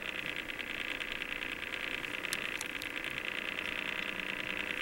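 Small motorised display turntable turning, a steady, fast, fine rattling whir. It is noisy, with a funny sound to it.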